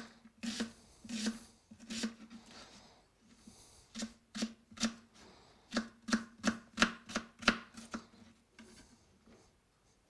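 Kitchen knife chopping an onion on a plastic cutting board: sharp taps of the blade on the board, sparse at first, then a quicker run of about three or four a second, stopping near the end.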